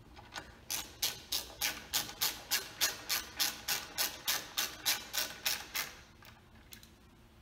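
Hand ratchet wrench clicking steadily, about three clicks a second for some five seconds, as the clutch pressure-plate bolts are run down, then two fainter clicks.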